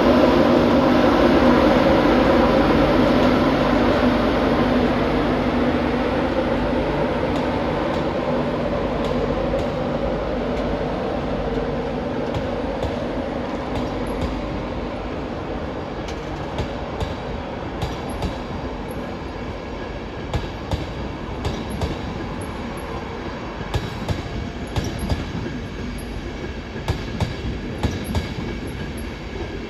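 LNER Class 91 electric locomotive hauling an InterCity 225 rake of Mk4 coaches slowly past, its steady hum fading as the coaches follow. From about halfway on, the wheels click over rail joints and points more and more often.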